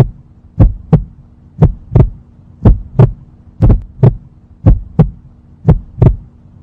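Heartbeat sound effect: deep paired lub-dub thumps about once a second, over a steady low hum.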